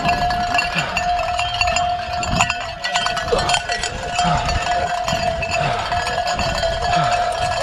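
A bell ringing continuously at one steady pitch, with soft low thumps about once a second.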